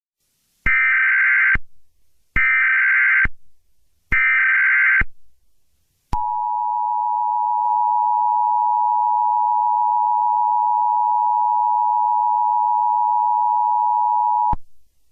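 Emergency Alert System tones: three short, raspy blasts of the digital SAME header, about a second apart. These are followed by the steady two-tone attention signal, held for about eight seconds before it cuts off sharply. Together they mark the start of an emergency alert broadcast.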